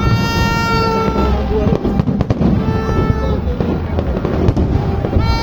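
Fireworks going off with crackles and low booms. Over them a horn blares a steady high note: a long blast at the start, a shorter one midway and another near the end.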